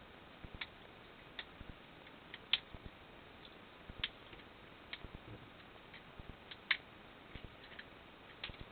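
Small sharp plastic clicks and taps at irregular intervals as a Syma X20 mini quadcopter's plastic body and shell are handled and pried apart. The loudest clicks come about two and a half seconds and nearly seven seconds in.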